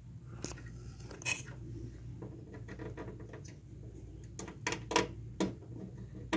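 Scattered light clicks and taps of hands and a cable plug at a data logger's port as the cable is plugged in, several close together a little past the middle, over a steady low hum.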